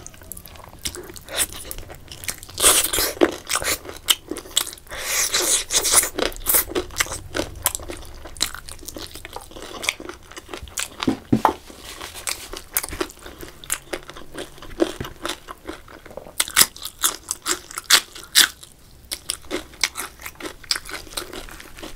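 Close-miked eating of curried chicken leg pieces and rice by hand: chewing and biting, heard as irregular sharp mouth clicks and smacks, with busier crackly stretches a few seconds in and again near the end.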